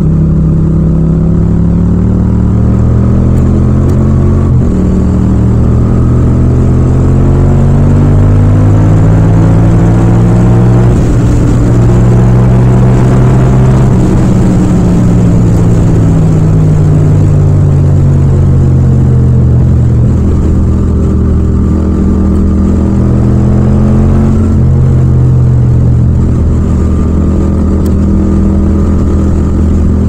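Yamaha MT-07's 689 cc parallel-twin engine pulling the bike along at speed, its pitch climbing through the first half, dropping as it eases off through the middle, then climbing again, with a short break in the pitch a few seconds in and again near the end.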